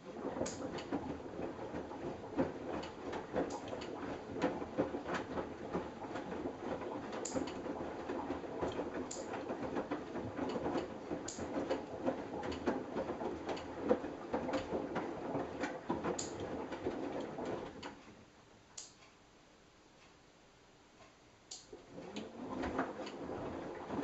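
Samsung Eco Bubble front-loading washing machine in its wash cycle: the drum turning and the laundry tumbling inside it with a steady clatter of small knocks. It stops about eighteen seconds in and starts turning again a few seconds later.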